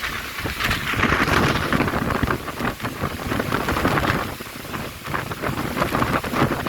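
Heavy rain in a strong wind, dense with rapid sharp drop hits close to the microphone; it grows louder about a second in, eases briefly near the end, then picks up again.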